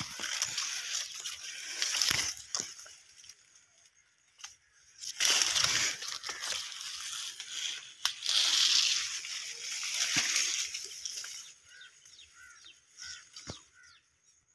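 Rustling and crunching of tall grass leaves and stalks as a person and animals push through them, in three noisy stretches with short lulls between. Faint bird chirps near the end.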